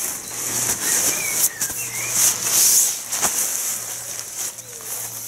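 Nylon tent fabric rustling and crinkling as the green flysheet is handled and pulled out of its bag, loudest a little past the middle, with one sharp knock about three seconds in.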